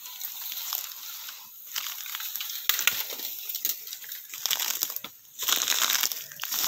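Footsteps crunching and rustling through a thick layer of dry bamboo leaves, in irregular crackling bursts.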